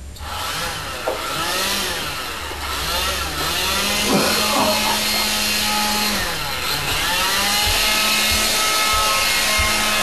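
A motor running loudly over a steady rushing hiss, its pitch repeatedly dipping and rising again, then holding steady for a couple of seconds in the middle.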